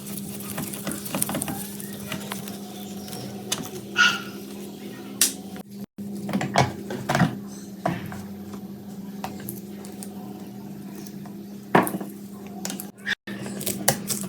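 Metal exhaust-fan parts clinking and knocking irregularly as they are handled, over a steady low hum.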